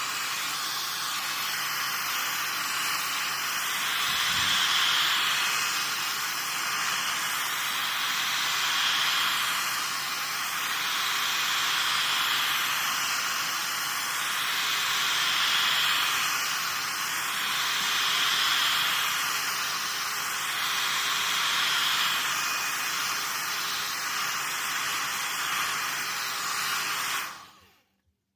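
Hot-air heat gun blowing steadily on a phone's back glass to heat it, the rush of air swelling and easing every few seconds. It is switched off abruptly about a second before the end.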